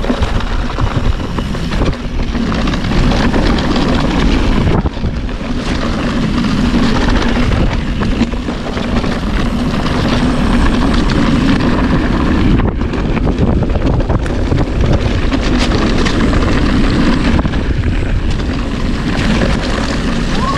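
Mountain bike riding a dirt trail: wind buffeting the microphone over a continuous tyre rumble, with frequent small knocks and rattles.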